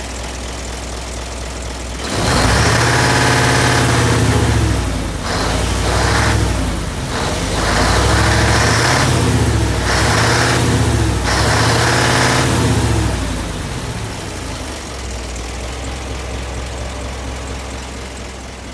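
Isuzu Giga truck's diesel engine idling, then revved up and let fall back several times in quick succession for about ten seconds before settling back to a steady idle.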